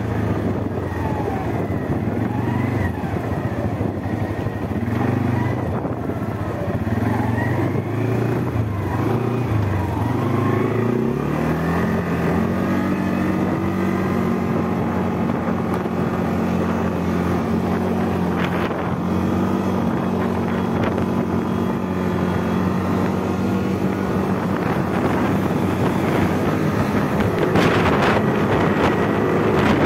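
ATV engine running under way on a dirt track. Its pitch wavers for the first ten seconds or so, climbs about halfway through as it speeds up, and then holds steady, with a few knocks from the rough track near the end.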